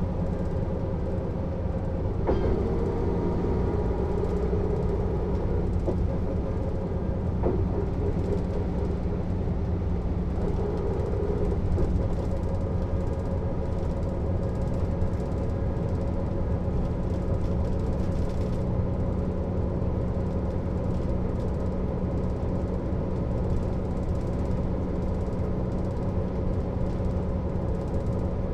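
Mercedes-Benz O 407 city bus under way, heard from on board: its diesel engine running steadily, with a few short knocks in the first dozen seconds.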